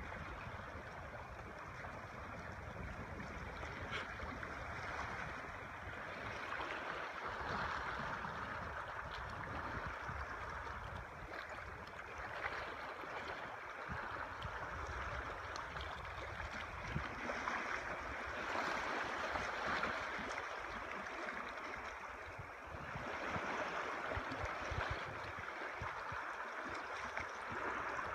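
Small lake waves lapping and splashing around a drifting canoe and along the rocky shore: a steady watery hiss that swells and eases every few seconds.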